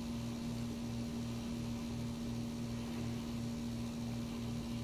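Steady electrical hum with a lower throb pulsing about three times a second.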